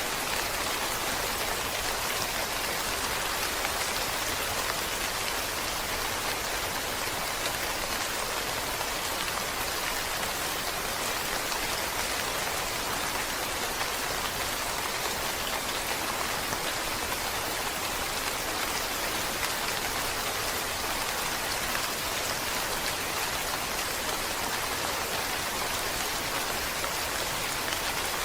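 Steady, even rainfall, a continuous hiss of raindrops with no change in intensity.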